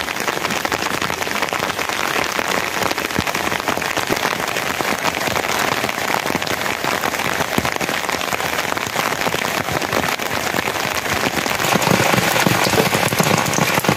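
Steady rain falling, a dense, even patter of drops, growing a little louder in the last couple of seconds.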